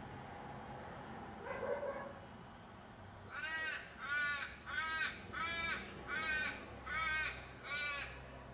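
A crow cawing seven times in a steady series, about one caw every 0.7 seconds, starting about three seconds in. A single short, lower sound comes about a second and a half in.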